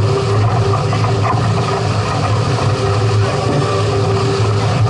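Steady loud rushing noise of a catamaran under way, with a steady low hum underneath.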